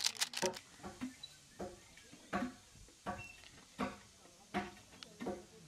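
An animal giving short pitched calls, one about every three-quarters of a second in a steady rhythm.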